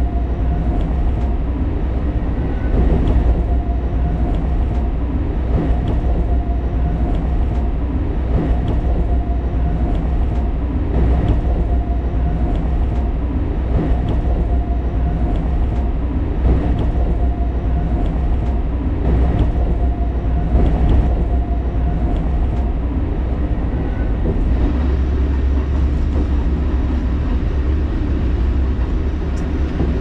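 Alishan Forest Railway train running along the line: a steady low rumble with scattered short clicks, and a faint steady tone that comes and goes until a little over three quarters of the way through.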